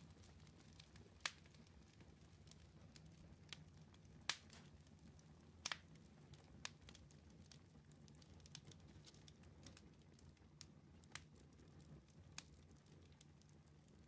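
Faint campfire crackling: scattered sharp pops at uneven intervals over a low, steady rumble.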